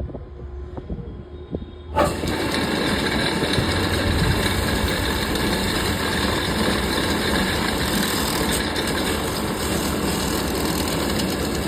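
A vehicle engine running steadily, cutting in abruptly about two seconds in after a quieter stretch with scattered clicks.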